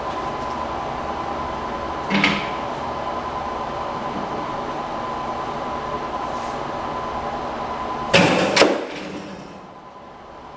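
A tablet in a protective case hits the floor after a one-meter drop, with a short impact about two seconds in and a louder clatter of impact and bounce about eight seconds in. Under it is a steady background hum.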